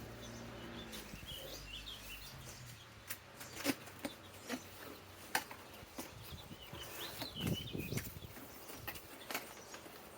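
Scattered clicks and knocks of a power-drill kit box being opened and its packaging handled, with faint bird chirps in the background. A low hum dies away in the first couple of seconds.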